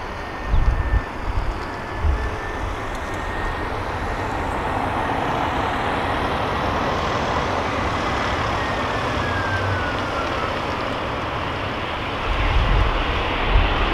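Airbus A318 jet engines running with a steady rush and a high whine that slides down in pitch about two-thirds of the way through as the aircraft goes past. Wind gusts buffet the microphone near the start and again near the end.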